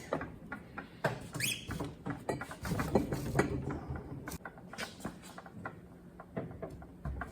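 Irregular clicks, clinks and scrapes of hand tools and parts being handled on a workbench while a torque wrench is set up on a transmission shaft nut, with a short rising squeak about a second and a half in.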